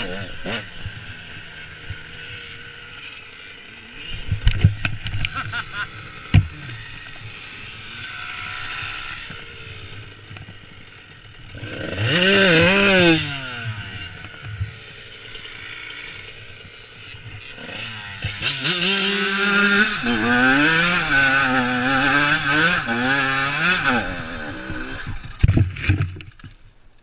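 Dirt bike engine revving up and down as it is ridden, with loud swells of revs about halfway through and again later. Sharp thuds early on the ground, and a cluster of hard knocks and scraping near the end as the bike goes down into a dirt bank.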